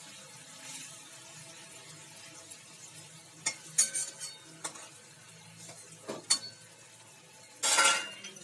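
A spatula scrapes and knocks against a kadai while fish in mustard gravy simmers with a faint steady sizzle on a low flame. Several sharp clicks come in the middle, and there is a louder scrape near the end.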